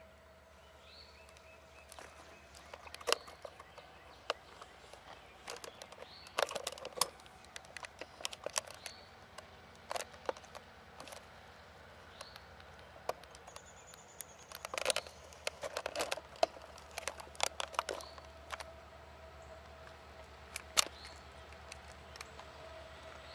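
Irregular sharp clicks and knocks of a camcorder being handled close to the microphone, over a faint steady hum. A few short, falling bird calls come through faintly.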